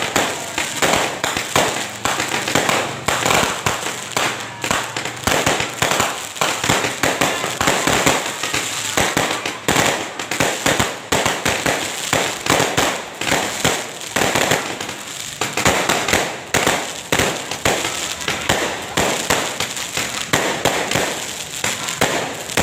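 New Year fireworks going off non-stop: a dense, irregular barrage of bangs and crackling pops with no letup.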